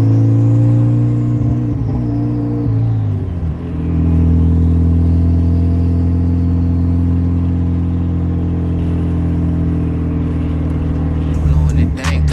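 Rebuilt Mitsubishi Lancer Evolution 8's turbocharged four-cylinder engine running at a steady drone, dropping in pitch about three seconds in and then holding steady at the lower note.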